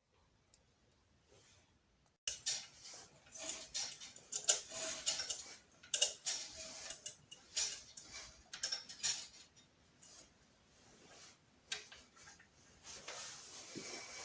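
Irregular clinking and clattering of small metal objects, starting suddenly about two seconds in, busy for several seconds and then only now and then.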